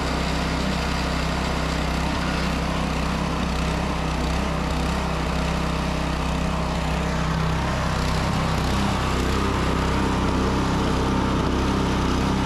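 Harbor Freight Predator 212 single-cylinder four-stroke engine (212 cc, 6.5 hp) on a John Deere 826 snowblower, running steadily.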